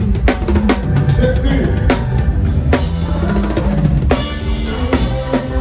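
Band music led by a drum kit: kick drum, snare and rimshot hits over a steady bass line.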